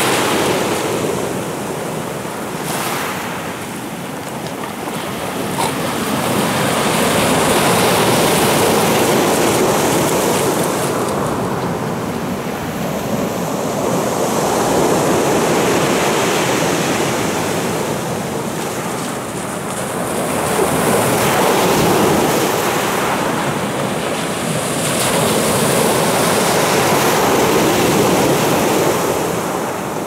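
Sea surf breaking and washing up a pebble beach, swelling and easing in slow surges about every six or seven seconds.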